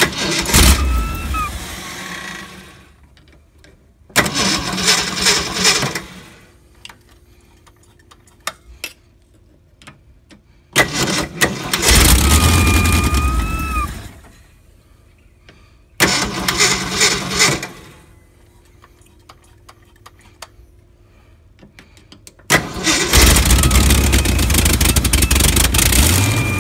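1969 AMC AMX V8 being started over and over: five bursts of cranking and brief running, each dying away after two to four seconds, the last one the longest. Several bursts carry a short squeal. The engine has a major vacuum leak and is starting on fuel left in the carburetor bowl.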